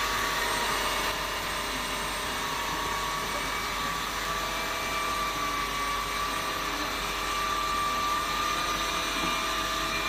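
Nuna Ultimate 7 cordless wet-and-dry floor cleaner running steadily on a tile floor, its suction motor and spinning roller brush giving a steady whine over a rushing hiss as it picks up spilled grains.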